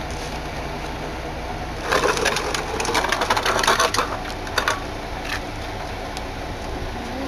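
Tri-axle dump truck's diesel engine idling steadily. From about two to five seconds in, a close, loud crunching crackle rises over it.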